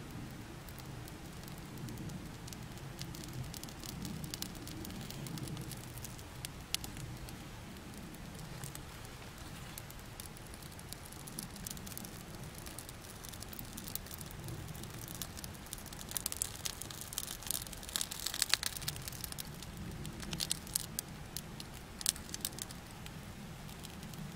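Kindling and feather sticks being handled and lit, then crackling and snapping as the small fire catches. The crackle is sparse at first and grows busy and loud in the second half, over a low steady background rumble.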